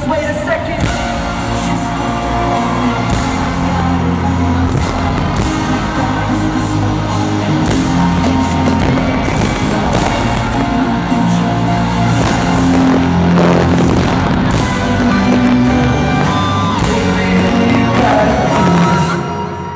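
Loud live pop band music in an arena, heard from the audience, with heavy sustained bass notes under the full band.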